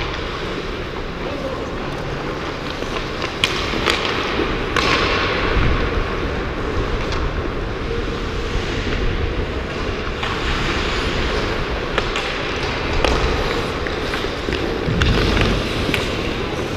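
Skates scraping and carving on rink ice with a steady rushing noise, broken several times by sharp clacks of hockey sticks and puck.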